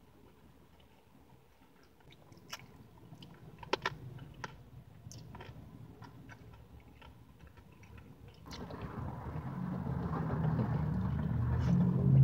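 Soft mouth clicks of chewing a soft cupcake, scattered through the first two-thirds. From about two-thirds through, a vehicle rumble swells steadily and is loudest at the very end.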